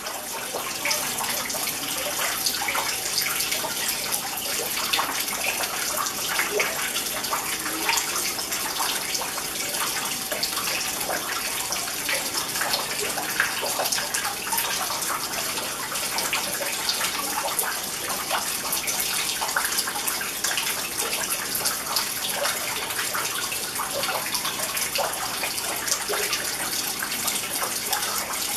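Rock-wall water fountain, with thin streams of water falling onto stones and splashing into a shallow pool: a steady trickling and splashing.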